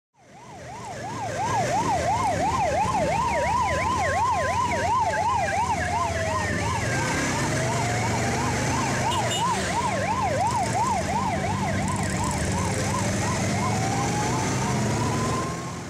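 Emergency vehicle sirens: a fast up-and-down yelp layered over a slower wail that rises and falls every few seconds, with a low vehicle rumble beneath. Fades in at the start and fades out near the end.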